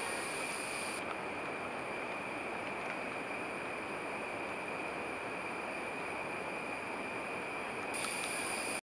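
Steady forest background noise with a constant high-pitched drone running through it, cutting off abruptly near the end.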